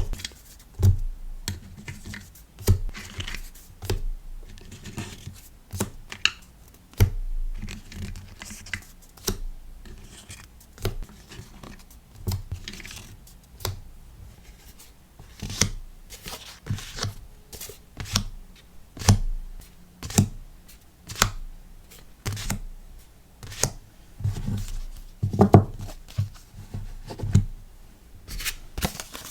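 Hands packing a sticker order, handling paper and plastic packing materials: an irregular run of sharp taps and clicks mixed with short rustles and scrapes.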